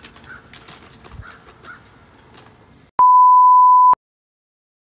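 Faint background with a few light clicks, then a loud, steady single-pitch electronic beep lasting about a second, edited in, that cuts off abruptly into dead silence.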